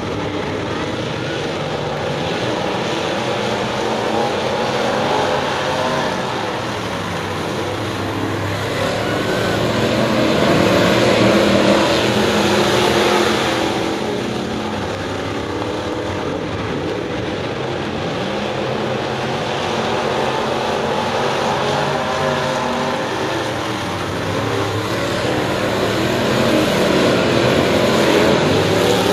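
A pack of dirt modified race cars with crate V8 engines running laps on a dirt oval. The engine noise swells and fades as the field comes round, loudest about ten seconds in and again near the end.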